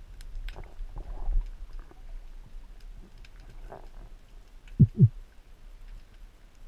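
Underwater sound through a camera housing on a speargun during a dive: scattered faint clicking and crackling with soft swishes of water movement, and two short low thumps, falling in pitch and a fraction of a second apart, about five seconds in.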